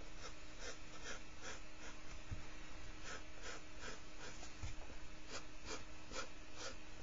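Graphite pencil drawing light, short curved strokes on paper, a soft scratch with each stroke at about two to three a second, pausing briefly partway through.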